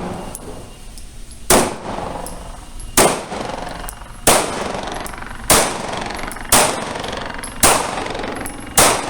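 Pistol shots: seven single shots at a steady pace, about one every 1.2 seconds, each with a short echoing tail.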